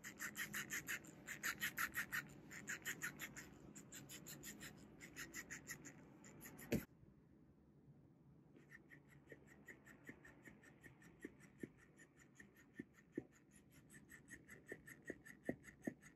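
Potaroma flopping fish cat toy's small battery-powered motor running and flapping the plush fish, a faint, rapid, even ticking buzz that comes in bouts. It cuts out sharply about seven seconds in and comes back fainter about two seconds later.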